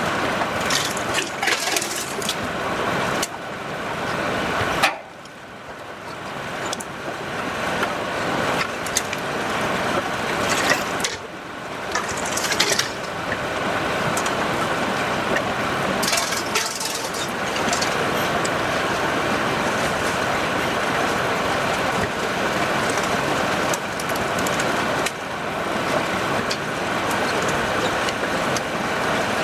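Heavy machinery running, a dense mechanical noise with scattered knocks. It drops off sharply about five seconds in and again about eleven seconds in, each time building back up.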